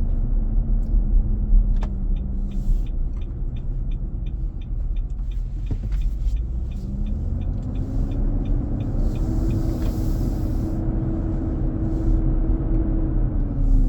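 2023 Nissan Armada running with its engine fan clutch engaged, a loud drone heard from inside the cabin while driving. The drone's pitch drops early on, then rises again about halfway through with engine speed. A run of light, quick ticks is heard in the middle.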